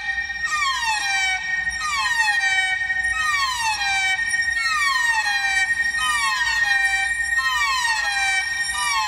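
Experimental music: a sliding pitched tone falls again and again, about once a second, with the falls overlapping, over a steady high held tone. It sounds siren-like.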